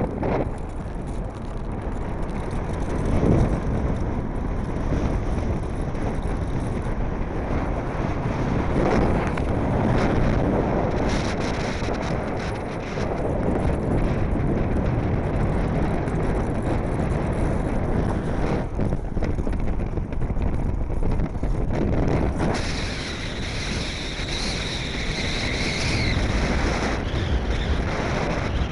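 Strong wind buffeting the microphone, with the rush of a Blokart land yacht rolling fast across the dry lakebed. A higher hiss joins in near the end.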